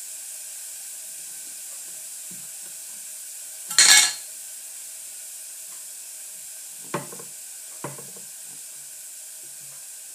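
Handling of Play-Doh and a heart-shaped cookie cutter over a steady faint hiss: a short loud scrape about four seconds in, then two light knocks about a second apart.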